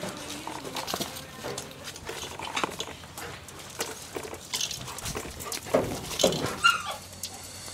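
45-day-old German Shepherd puppies play-fighting: scuffling and small knocks on the ground, with a few short high yips toward the end.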